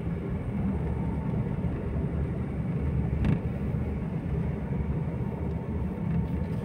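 Car engine and road rumble heard from inside the cabin while driving, low and steady, with a single brief knock a little past the middle.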